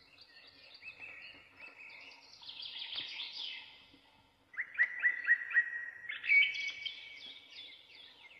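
Small birds chirping and singing in quick repeated notes. The chirping stops briefly about four seconds in, then comes back louder.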